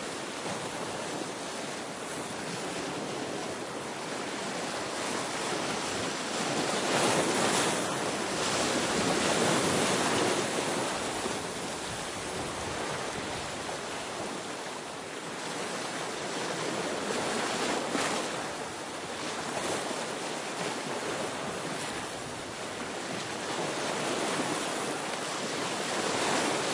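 Sea waves breaking and washing against a rocky shore, a steady rush that swells and eases in slow surges, loudest about seven to ten seconds in.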